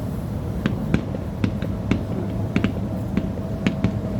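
Fireworks going off: about a dozen sharp, irregular bangs and cracks over a steady low background rumble.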